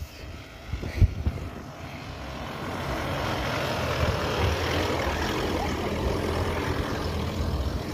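Force Gurkha 4x4's diesel engine working hard under load on a rough off-road track, building up over the first three seconds and then holding steady.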